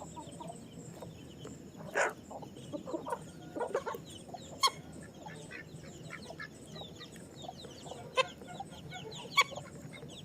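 A flock of chickens clucking, with many quick high chirps and a few short, louder calls standing out.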